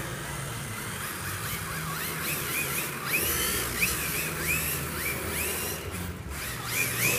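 Electric motors of RC drift cars whining in repeated rising and falling glides as the throttle is blipped, about two a second. The whining starts about a second and a half in and breaks briefly near the end.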